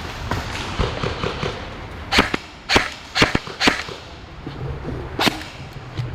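Airsoft gunfire: about six sharp cracks, four of them in quick succession about two to four seconds in and one more near the end.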